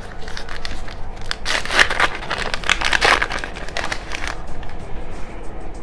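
Wrapper of a collectible card pack being torn open and crinkled by hand: a dense run of crackling from about a second and a half in until about four seconds in, then a few faint rustles.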